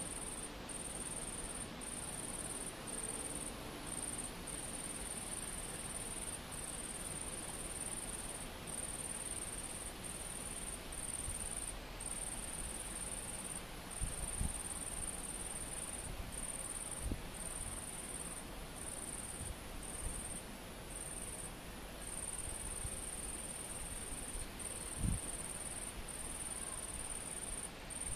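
An insect stridulating: a steady, high-pitched buzz in long trains broken by short gaps. A few soft low thumps sound in the middle and later on.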